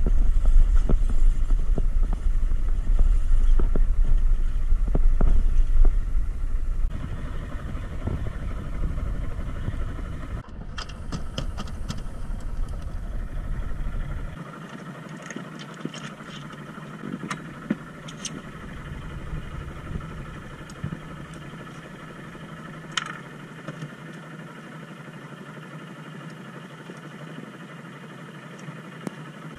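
Fishing boat's engine running steadily, with a heavy low rumble of wind on the microphone for the first several seconds. From about halfway on, the engine is quieter and scattered sharp clicks and knocks sound over it.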